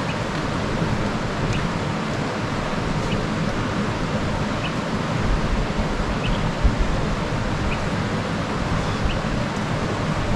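Steady wind noise buffeting the microphone, with low rumbling gusts in the middle. A bird chirps faintly, one short high note about every second and a half.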